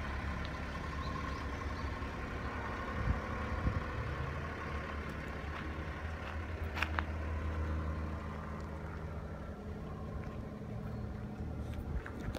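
Honda Acty HA4 kei truck's small three-cylinder engine idling steadily.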